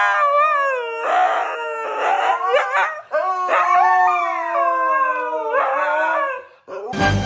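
Husky "talking": a long string of drawn-out howl-like vocalizations whose pitch slides up and down, with rough, grumbling stretches in between. Music cuts in near the end.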